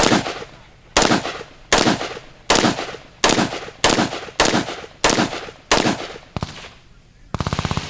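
Gunfire: about nine single shots, a little under a second apart, the last one fainter. Near the end comes a short, rapid burst of shots.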